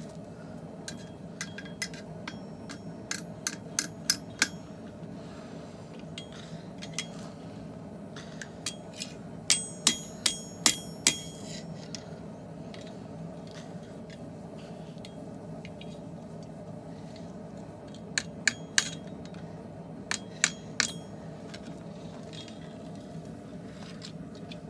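Hammer blows on hot steel at an anvil while forging a messer blade, in bursts of a few quick strikes with pauses between, some blows ringing. A steady low hum runs underneath.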